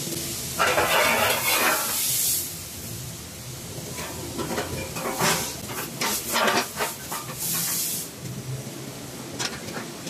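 An SUV's underbody cover being handled and fitted back into place: scraping, hissy rustling bursts near the start and near the end, with a run of clicks and knocks in the middle.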